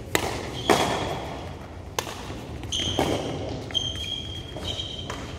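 Badminton rackets striking a shuttlecock in a rally: sharp hits about once a second, ringing in a large hall. In the second half, high squeaks from shoes on the court mat.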